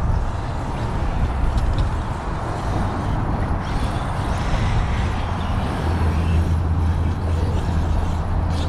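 Radio-controlled cars running flat out in a race, heard as a steady rush of motor and tyre noise, with a low rumble that gets stronger about six seconds in.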